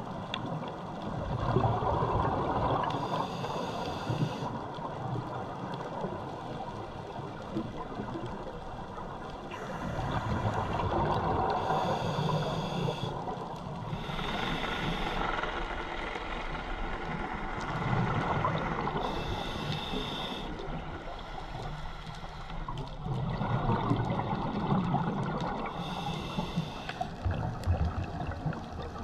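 A scuba diver breathing through a regulator underwater, four slow breaths. Each inhale is a short hiss, and each exhale is a longer, louder rush and gurgle of bubbles.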